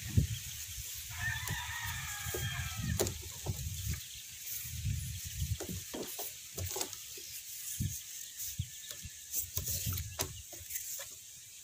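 A rooster crows once, starting about a second in and lasting roughly two seconds, amid scattered knocks and taps.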